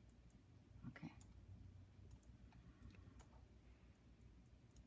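Near silence with a low steady hum and a few faint computer mouse clicks, the loudest about a second in, as a 3D view is rotated.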